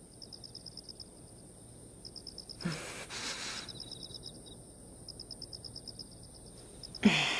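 Crickets chirping in short repeated trains as background ambience. A breathy sigh comes about three seconds in, and a louder sigh near the end.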